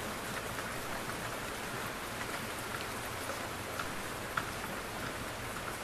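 Soft rain falling steadily: an even hiss dotted with the ticks of single drops, one drop landing louder about four and a half seconds in.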